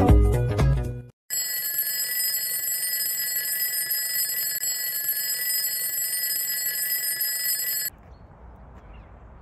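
An alarm clock bell sound effect rings steadily for about six and a half seconds, then cuts off suddenly. Before it, the last second of upbeat intro music fades out; after it, only faint outdoor background remains.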